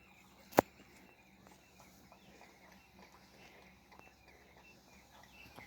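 Puppy lapping milk, a run of faint irregular small ticks, with one sharp, loud click about half a second in.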